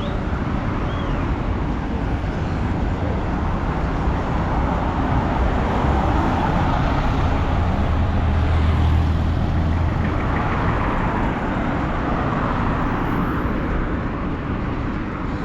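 Road traffic noise: a steady rumble of vehicles on a busy road, swelling in the middle as a vehicle passes close.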